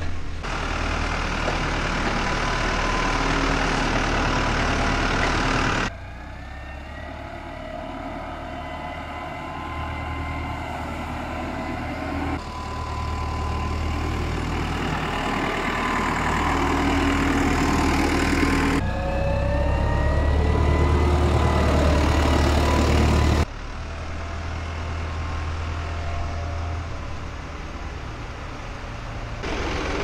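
Diesel tractor engines running under changing load, the pitch rising and falling as they work, among them a Deutz-Fahr Agroplus 85 compacting the silage heap. The sound comes in several clips that cut abruptly from one to the next.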